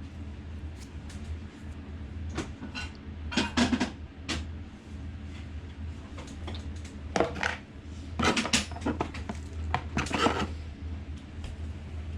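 Scattered metallic clinks and knocks of small hard parts and tools being handled. They come in clusters, about two to four seconds in, near the middle, and again toward the end, over a steady low hum.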